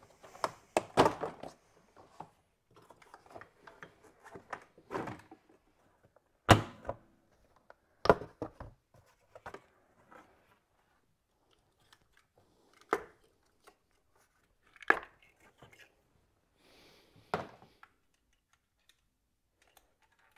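Irregular plastic clicks, knocks and thunks of hands working on a supercharged Audi 3.0T V6, unclipping and pulling its ignition coil packs to get at the spark plugs. The hardest knock comes about six and a half seconds in.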